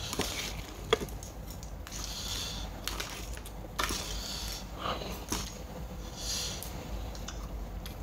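A person eating spicy raw crab salad: wet chewing with a few sharp cracks of crab shell and some short sniffs.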